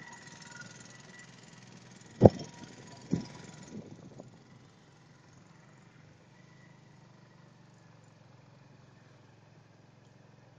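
Steady low engine hum heard from a moving vehicle, with one loud sharp thump about two seconds in and two smaller ones over the next two seconds.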